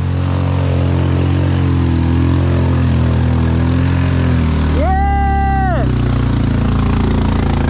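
Off-road vehicle engine running steadily, its pitch shifting a little midway. About five seconds in, a person shouts once: the shout rises, holds for about a second and falls away.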